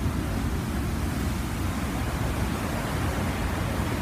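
Steady rushing noise on a ferry's open deck: wind buffeting the microphone, with a heavy low rumble, over the churn of the ship's white wake.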